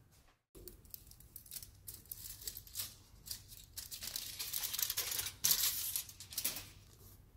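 Gift-wrapping paper rustling and being torn off a book in a string of rips that grow louder, the loudest coming between about four and six and a half seconds in.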